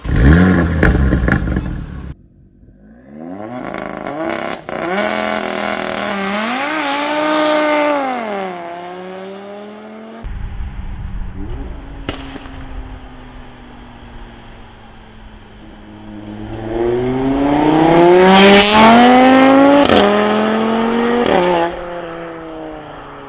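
Volkswagen Golf 7R's turbocharged 2.0-litre four-cylinder engine and exhaust revving hard: a short loud blip at the start, a climbing pull with its pitch rising and dipping, a lower steady stretch, then a second long rising pull near the end. A few sharp pops come from the exhaust as it comes off the throttle.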